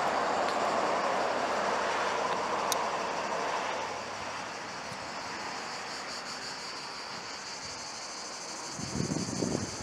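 A vehicle passing on the road, its noise fading away over the first few seconds, then steady high-pitched chirring of insects. About nine seconds in, wind buffets the microphone.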